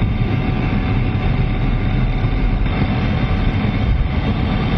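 MiG-29's twin Klimov RD-33 turbofan engines running steadily on the ground just after start-up, heard from inside the closed cockpit as a loud, even, low rumble.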